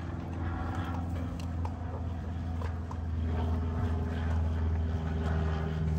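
A steady low engine-like motor hum that grows a little louder about halfway through, with a few light clicks from puppies eating at feeders hung on a wire kennel panel.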